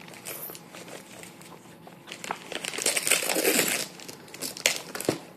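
Gift wrapping paper being torn and crinkled by a toddler's hands as a present is unwrapped, with a louder rip lasting over a second about two and a half seconds in.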